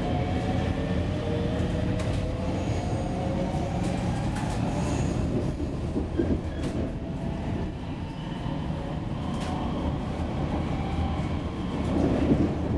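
Helsinki Metro M200 train heard from inside the passenger car while under way: steady wheel and rail rumble with occasional clicks. An electric whine rises in pitch over the first couple of seconds.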